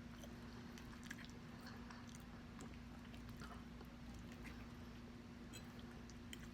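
Faint chewing of a mouthful of soft lasagna: quiet, scattered mouth clicks over a steady low hum.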